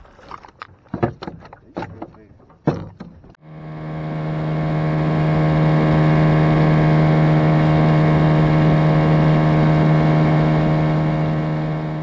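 Splashing from a hooked largemouth bass thrashing at the surface for the first few seconds. Then an outboard motor running steadily at speed, a loud constant drone that swells in over a couple of seconds and fades near the end.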